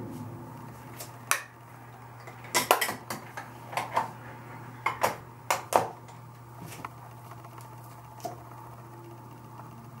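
Small hard makeup containers and tools clicking and clattering as they are picked up and put down on a hard surface, in a scattered string of sharp knocks, busiest in the middle, over a steady low hum.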